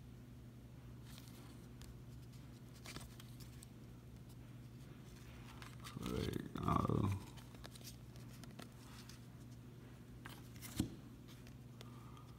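Trading cards being thumbed through and slid off a stack by hand, with faint papery slides and small clicks over a steady low hum. About six seconds in there is a short wordless vocal sound, the loudest thing in the stretch, and a sharper card click comes near the end.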